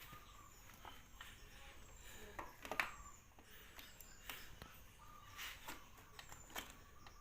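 Faint, scattered clicks and light taps of small parts and tools being handled, with one sharper click about three seconds in.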